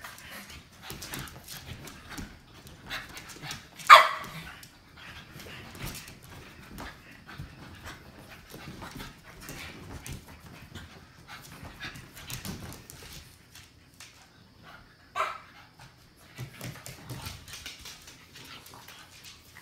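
French bulldog puppies playing and scuffling on a couch and floor, with small scattered yaps and paw noises. Two short, sharp play yips stand out, the loudest about four seconds in and another about fifteen seconds in.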